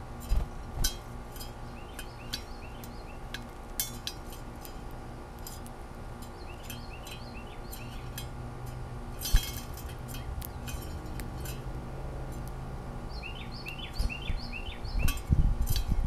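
Sharp clicks and cracks of a female northern cardinal's bill on seed and the plastic feeder tray. Between them come three short runs of quick repeated chirps from a bird, and muffled thumps near the end.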